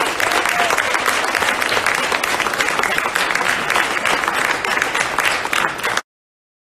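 Audience applauding, many hands clapping at once; it cuts off suddenly about six seconds in.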